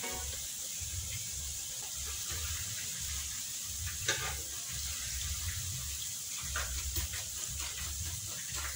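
Battered potato pieces (viazi karai) sizzling steadily in hot oil in a deep pot, over a low rumble. A wire skimmer clicks against the pot a few times as fried pieces are lifted out.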